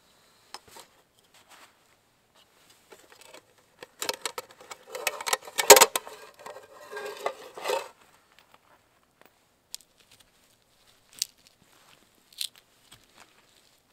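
A long steel saw blade being coiled into a metal cooking pot, clattering and scraping against the pot rim for about four seconds, with one sharp metallic clank in the middle. A few light, isolated ticks follow.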